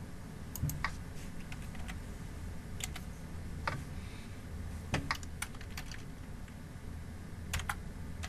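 Typing on a computer keyboard: scattered key clicks in a few short runs, over a low steady background hum.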